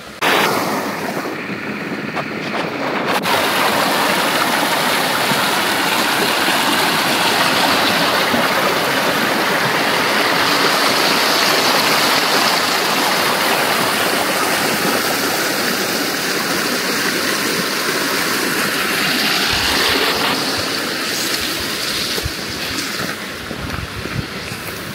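Rushing stream water: a steady, loud rush that cuts in abruptly at the start and eases slightly near the end.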